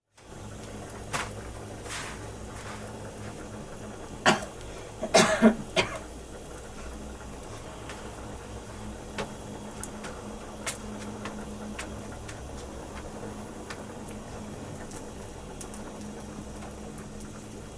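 Knocks and clatter of cooking work: a few sharp knocks, a louder burst of clattering about four to six seconds in, then a couple of small clicks, over a steady low hum.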